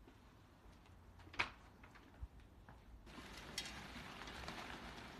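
Quiet room tone with a single sharp click about a second and a half in and a fainter one soon after. The background noise rises a little about three seconds in, with a few soft taps.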